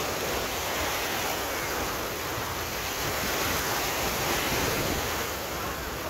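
Atlantic Ocean surf washing in over a shallow sandy beach, a steady rush of small breaking waves, with wind buffeting the microphone.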